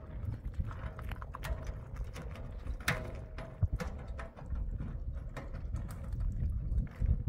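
Irregular knocks and clatter of stones and a metal wheelbarrow on rocky ground, mixed with footsteps on gravel, over a low rumble.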